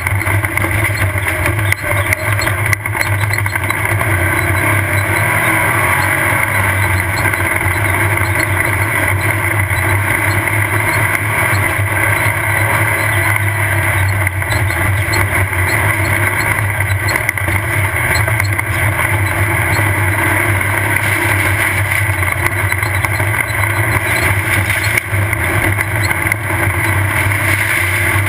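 Off-road race vehicle's engine running hard and steady at speed, with rattling and a few sharp knocks from the rough course.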